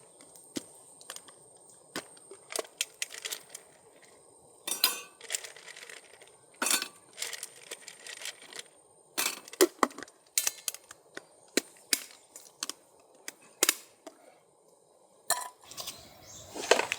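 A scattered series of sharp clinks, knocks and taps at an irregular pace, some with a brief metallic or glassy ring, like camp cookware and gear being handled.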